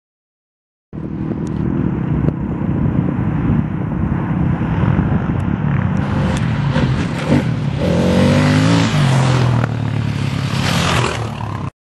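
Dual-sport dirt bike engines working up an off-road hill climb, with one bike revving, its pitch rising, as it comes up and passes close by near the end. The sound starts abruptly about a second in and cuts off abruptly just before the end.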